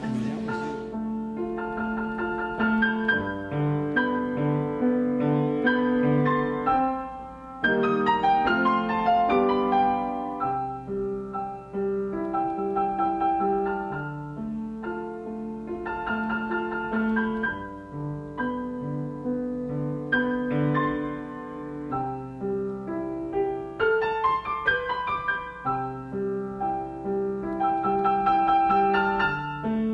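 Background piano music: a slow melody over sustained chords.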